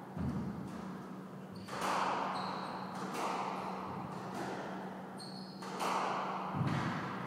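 Squash rally: the ball cracks off rackets, walls and floor several times, a second or two apart, each hit echoing around the court. Short high squeaks of shoes on the wooden floor come twice.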